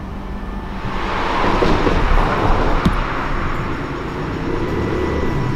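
Street traffic noise: a rushing sound of passing vehicles that builds about a second in and stays loud.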